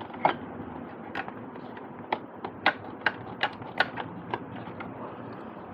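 Irregular sharp clicks and taps, about a dozen over a few seconds: test probes and small wiring parts being handled while checking the polarity of a USB port's wiring.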